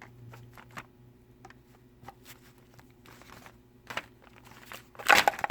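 Handling noises from a small electronic device being worked by hand: scattered light clicks and scrapes, then a louder crinkling rustle about five seconds in.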